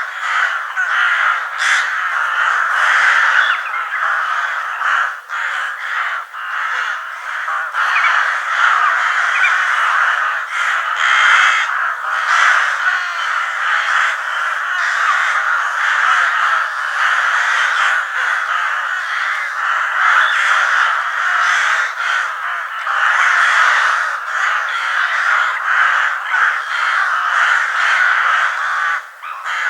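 A large flock of crows cawing all at once, many harsh calls overlapping into a continuous din.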